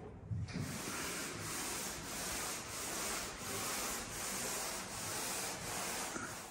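Hand sanding on a car body's primer and spray filler: sandpaper rubbed in quick back-and-forth strokes, about two a second. It starts about half a second in and cuts off suddenly.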